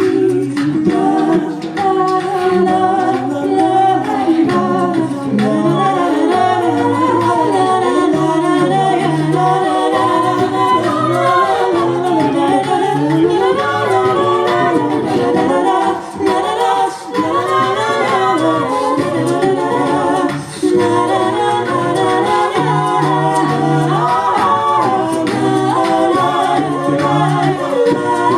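A cappella vocal group singing a pop song in several-part harmony, with a sung bass line under the upper voices.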